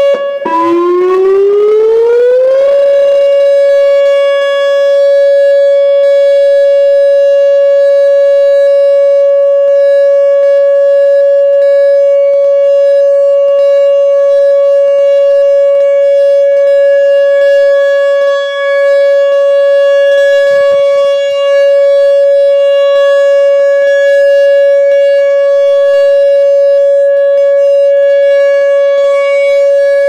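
Whelen WPS-2910 electronic outdoor warning siren sounding its steady alert tone. Near the start the pitch dips and glides back up over about two seconds, then holds one steady, loud note.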